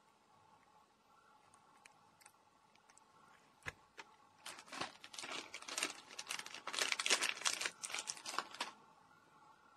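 A cat crunching and chewing a dried kamaboko (hoshikama) fish-paste treat. A couple of sharp clicks come about four seconds in, then about four seconds of dense crackly crunching that stops suddenly.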